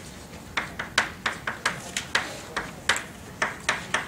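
Chalk writing on a chalkboard: a quick run of sharp taps and short strokes, several a second, as the words are written out.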